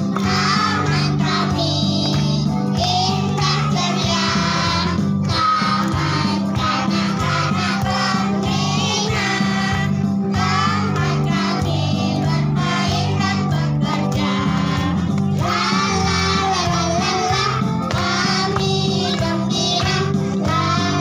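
A child singing a song over an instrumental backing.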